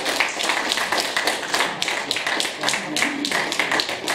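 A small group of people clapping by hand at a quick, irregular pace, with voices talking over it.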